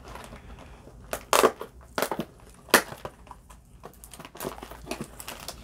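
A cardboard blaster box of baseball cards being torn open by hand, with a string of sharp cardboard cracks and crackles, the loudest in the first half.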